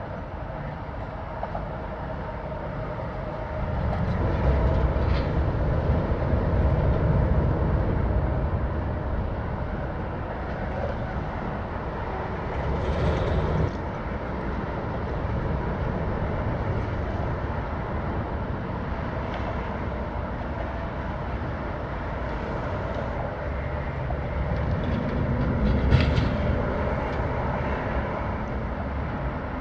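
Low, steady mechanical rumble, louder from about four seconds in, with a sharp knock about 26 seconds in.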